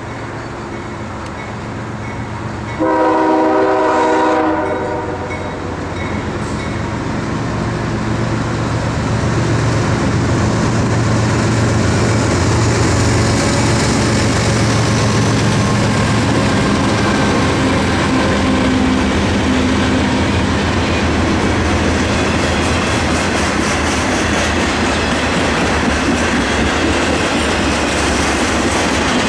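CSX freight train with GE diesel locomotives sounds one multi-tone horn blast about three seconds in, lasting some two seconds. The locomotives' diesel engines then run past close by, followed by double-stack intermodal cars rolling by with steady clickety-clack of wheels on the rails.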